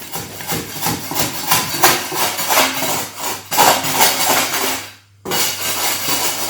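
A hand tool repeatedly scraping and knocking at tile adhesive laid as floor levelling, chipping it out. The adhesive never set hard, so it comes up easily. There is a short pause about five seconds in.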